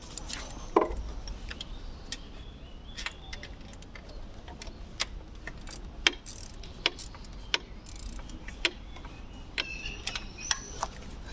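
Irregular sharp metallic clicks and taps of hand tools working at the starter motor's bolts, with one louder clank about a second in.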